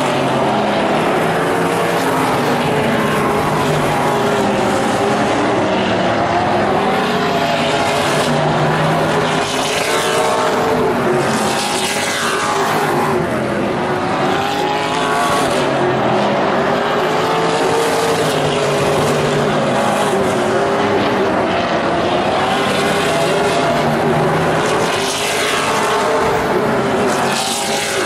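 A field of vintage modified race cars running at speed on an oval, several engines at once, rising and falling in pitch as the drivers lift and accelerate through the turns. Cars pass close by twice, their sound sweeping down in pitch, about a third of the way in and again near the end.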